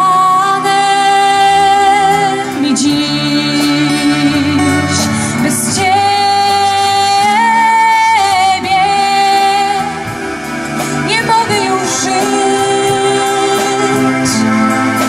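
A live Christian worship song: a woman singing long held notes over acoustic guitar and band accompaniment.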